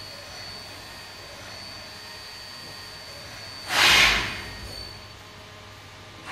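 Trident CNC vertical machining centre running, a steady hum with a thin high whine. About four seconds in comes one loud burst of hissing noise, lasting about half a second.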